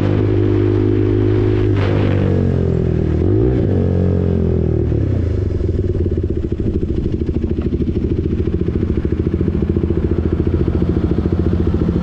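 KTM RC 390's single-cylinder engine through an SC Project exhaust, revs falling as the bike slows on a closed throttle. About three seconds in the revs briefly rise and drop. From about five seconds in it settles to a steady idle with an even, fast thumping.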